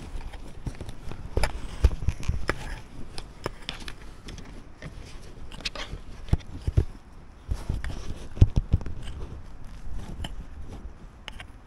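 Digging in earth with hand tools: irregular strikes into the soil mixed with scraping. The loudest strikes come a little over eight seconds in.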